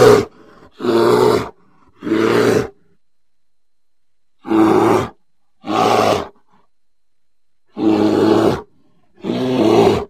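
A string of about seven short, deep animal roars, each under a second, in groups of two or three with short gaps between. It is a sound-designed Megatherium (giant ground sloth) call, pieced together from library creature, bear and moose recordings.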